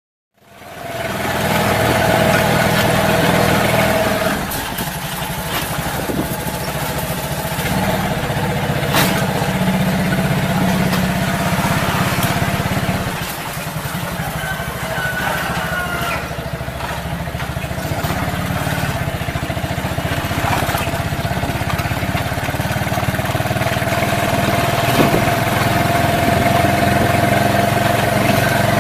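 Small motorcycle engine running steadily as it pulls a passenger sidecar taxi along a street, heard from the passenger seat close behind the rider. It fades in just after the start and eases off briefly twice.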